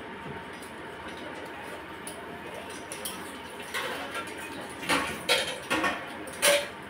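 Metal spatula and utensils clinking and scraping against steel cooking pans, a few sharp clinks in the second half over a low steady background hiss.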